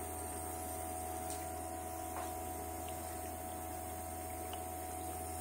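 Several Young Living ultrasonic essential-oil diffusers running together: a steady low hum with faint higher tones over it, and a couple of faint ticks.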